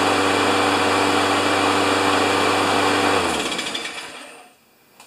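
Briggs & Stratton Quantum single-cylinder engine on a Craftsman push mower running steadily with its blade just tightened, then shut off about three seconds in and winding down to a stop.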